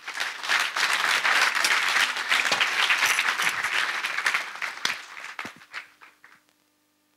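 Audience applauding, thinning out to a few last claps near the end.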